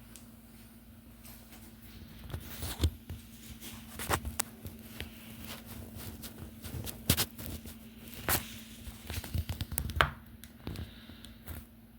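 Handling noise from a camera being touched while its lens is wiped: irregular knocks, taps and rubbing close to the microphone, over a steady low hum.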